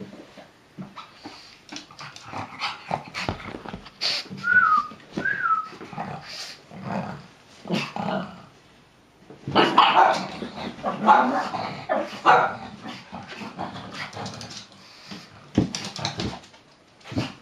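A frightened pug barking and whimpering, with two short high whines about four and five seconds in and its loudest run of barks around ten to twelve seconds in.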